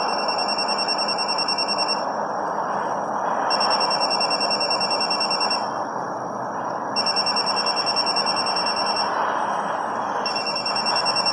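Electronic telephone-style ringing tone played through a smartphone loudspeaker: a high, rapidly warbling tone in four bursts of about two seconds with short pauses between them, over a steady hiss.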